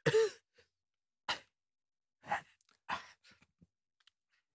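Dry, studio-dubbed fight vocals: a man's short grunt at the start, then three brief huffs of breath about a second apart, with dead silence between.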